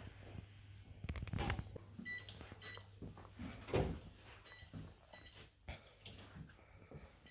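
Quiet room tone with a steady low hum and a few soft knocks and handling sounds, while faint short high-pitched pips come in pairs a few times.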